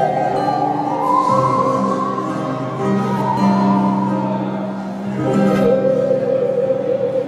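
A handsaw played with a violin bow as a musical saw: a wavering, singing tone that slides up, holds high, then falls and settles on a lower note about five seconds in. Steady low held notes of an accompaniment sound beneath it.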